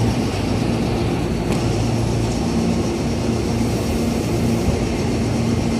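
Meitetsu μSKY electric train standing stopped at the platform, its onboard equipment humming steadily with a low, constant tone.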